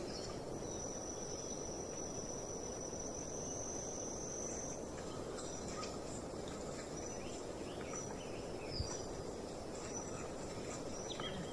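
Steady outdoor background hiss with a high, thin call held for about four seconds. After that come short high chirps repeated about once a second.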